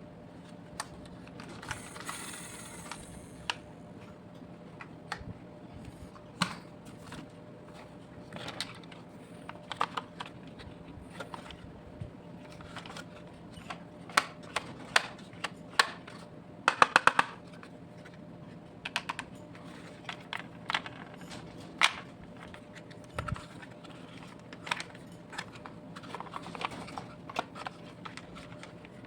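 Scattered light clicks and taps of small hard objects being handled, with a quick run of louder clicks about halfway through, over a faint steady hum.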